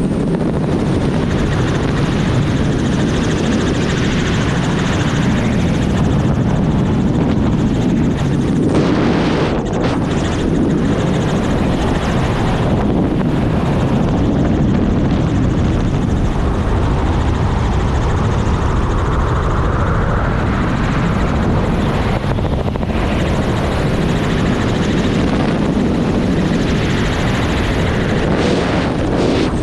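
Helicopter in flight heard from on board: the steady, loud noise of the rotor and engine, with wind buffeting the microphone.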